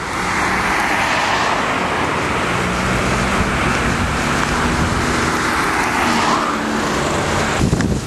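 Road traffic noise: a steady rush of tyres and engines, with faint engine tones underneath. It cuts off suddenly near the end.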